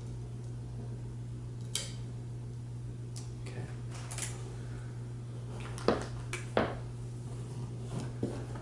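Scattered knocks and clatter of the DAVID SLS-2 3D scanner's slide rail, with its projector and camera mounted, being handled, lifted out of its box and set down on the table. The loudest knock comes about six seconds in, with a second one shortly after. A steady low hum runs underneath.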